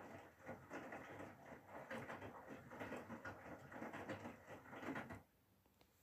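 Whirlpool FSCR90425 front-loading washing machine drum tumbling wet laundry during a wash, an uneven swishing of clothes and water. It stops suddenly about five seconds in as the drum comes to rest.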